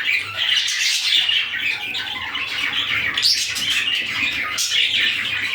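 A gray budgerigar chattering and warbling without a break, a run of rapid squeaky notes with the odd sharper chirp: the contented chatter of a happy budgie.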